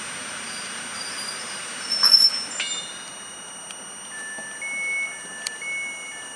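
EN57AL electric multiple unit braking to a stop, with a brief high brake squeal about two seconds in and a steady electrical whine after it. Near the end comes an alternating two-tone beeping, the door warning signal.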